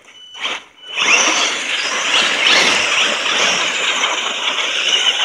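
Brushless electric motors of Axial SMT10 RC monster trucks on 3S batteries whining under throttle while their tyres spin and churn through slushy snow. A short burst about half a second in, then continuous hard running from about a second in.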